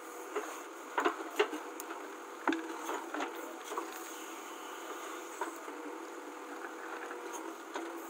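JCB 3DX backhoe loader's diesel engine running steadily as the rear bucket digs a trench in stony soil, with several sharp knocks and clatters of the bucket against earth and stones, the loudest in the first three seconds.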